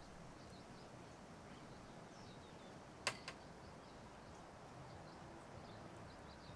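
Quiet room with faint, scattered high bird chirps in the background, and a sharp double click about three seconds in as the wooden craft stick knocks against the plastic paint cup while scraping out the paint.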